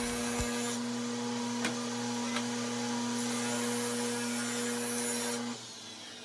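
Drill press running with a steady hum as a 1/4-inch Forstner bit bores a string hole through a cedar board; the motor shuts off about five and a half seconds in.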